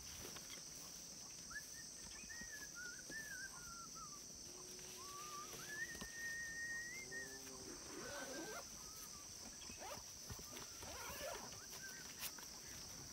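Faint rural ambience: a steady high-pitched insect drone, with faint wavering animal calls that glide up and down through the first half or so.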